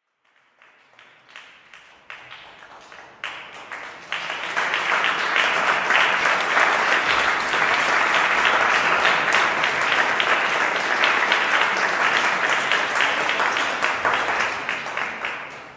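Concert audience applauding. A few scattered claps swell into full, dense applause about four seconds in, hold steady, then die away near the end.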